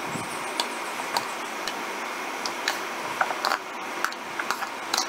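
Diced bottle gourd cubes tipped from a plastic bowl into a pressure cooker, making a scatter of light clicks and taps that get busier about three seconds in, over a steady background hiss.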